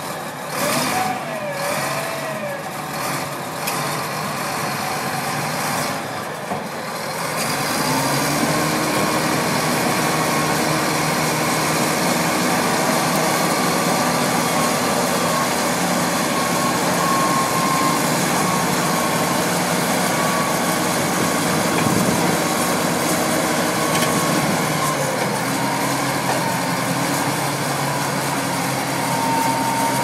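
Shantui SD16 crawler bulldozer working, its Weichai WD10 diesel engine running. The engine grows louder and steadier under load from about seven seconds in. There are a few clanks and wavering squeals in the first few seconds.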